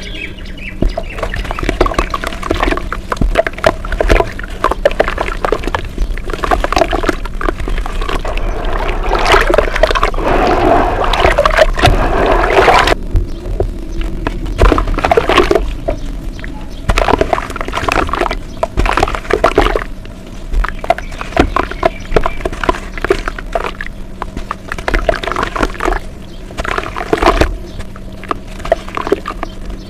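Brown dirt being crushed and squished as a wet, creamy paste, giving dense crunchy crackles mixed with wet squelching. It is busiest a few seconds before the middle, then breaks off briefly and resumes in shorter bursts.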